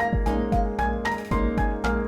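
Background music with a steady beat: a drum-machine kick and snare under a bright stepping synth or keyboard melody.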